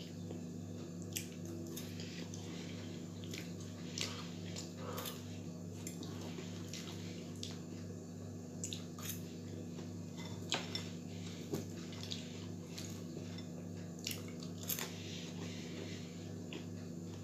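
Someone eating french fries with a fork from a bowl: scattered small clicks and taps of the fork on the bowl, with soft chewing, over a steady low hum.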